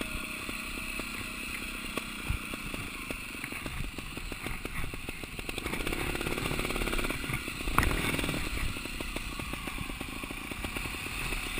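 Trials motorcycle engine running at low revs, its firing pulses uneven as the bike is ridden slowly over rough ground, picking up a little about six seconds in. A single sharp knock near eight seconds.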